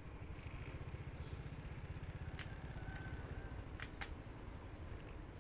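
Motorcycle engine running at low speed, a steady low rumble, with a few sharp clicks about two and four seconds in.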